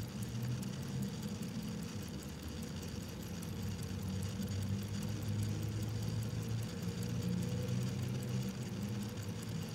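Steady low hum, with faint, rapid, even ticking from a vintage ZIM 15-jewel mechanical watch.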